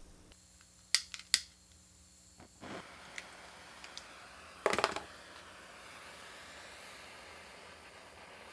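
Sharp clicks and knocks: two loud ones about a second in, a few faint ticks, then a quick cluster near five seconds.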